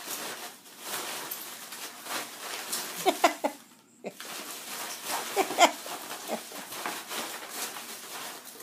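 Foam packing peanuts rustling, crunching and clattering in a plastic tub as a ferret burrows and thrashes through them. Two clusters of short, squeaky, wavering sounds come about three and five and a half seconds in.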